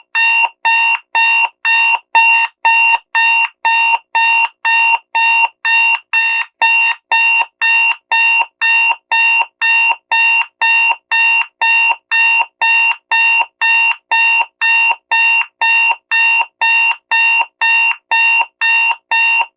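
Digital alarm clock sounding: a loud electronic beep at one steady pitch, repeating evenly about twice a second.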